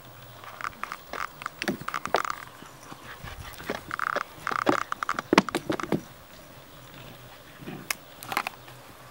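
Bernese mountain dog puppies play-fighting over toys on grass: scuffling and snuffling with sharp little knocks, and a few short, high puppy sounds about two, four and five seconds in.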